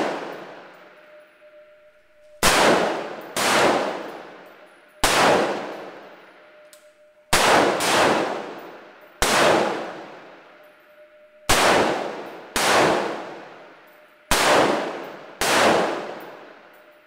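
Rifle shots fired one at a time, about ten in all, often in pairs about a second apart, each ringing off in the reverberation of an enclosed indoor range.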